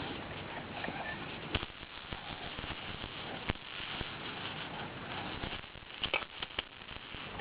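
Baby rattle toys being knocked by a baby's hands: a few scattered single clicks, then a quick run of clicks about six seconds in.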